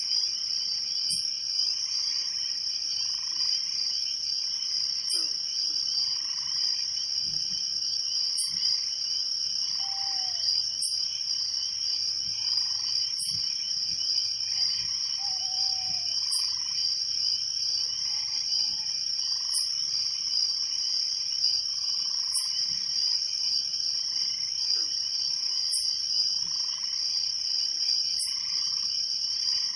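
Night chorus of crickets trilling steadily, with frogs calling through it. A short high chirp repeats every two to three seconds over the chorus.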